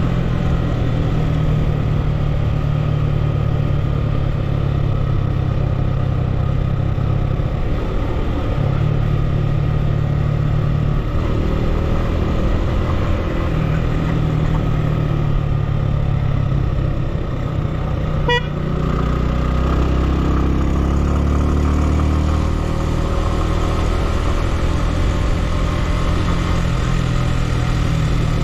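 Motor vehicle driving on the road: a steady engine sound with road noise, the engine note shifting several times as it speeds up and eases off. A short sharp click comes about eighteen seconds in.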